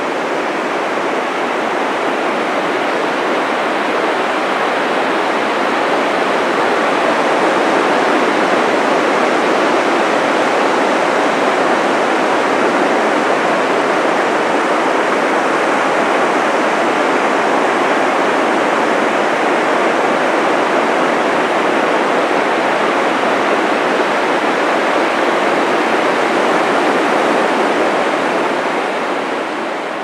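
Ocean surf washing onto a sandy beach: a steady, even rush of water that fades out near the end.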